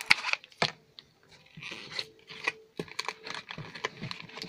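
Foil wrapper of a Pokémon trading-card booster pack crinkling as it is handled: a few sharp crackles, a brief lull, then denser crinkling from about a second and a half in.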